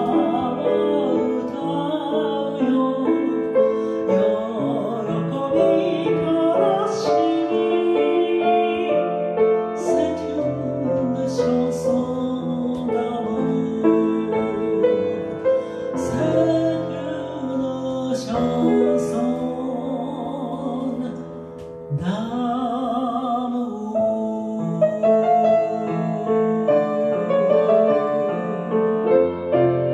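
A woman singing a Japanese chanson with vibrato, accompanied by a grand piano. There is a short lull about two-thirds of the way through before her voice comes back in.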